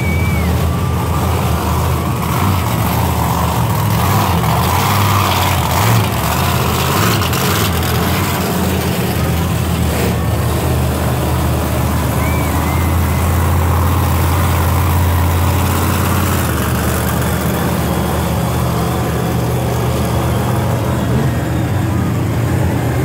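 Monster truck engines running with a deep, steady rumble as the trucks roll slowly past a crowd, loudest as one passes close about halfway through.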